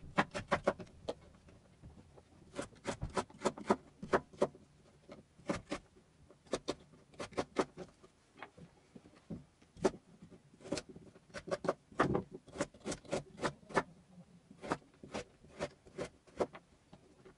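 Kitchen knife slicing carrots into long strips on a wooden cutting board: irregular runs of sharp knocks as the blade strikes the board, several a second, with short pauses between runs.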